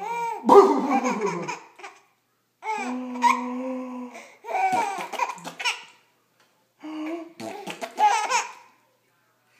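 A man sneezing several times over, each sneeze a sudden loud burst, with a young child's delighted laughter and squeals after each one.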